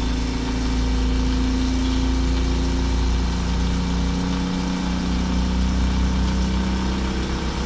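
Okuma LU-15M CNC lathe turning a part: the spindle turns and the turret tool cuts while coolant sprays, giving a loud, steady machine hum with a few held tones.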